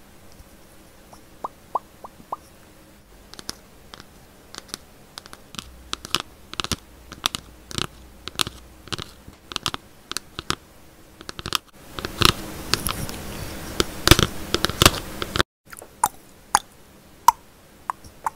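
ASMR tapping and scratching on a small children's nursery-rhyme book held close to an earphone microphone. Sharp taps and clicks come faster as it goes on, and about twelve seconds in there is a few seconds of scratchy rustling that cuts off suddenly.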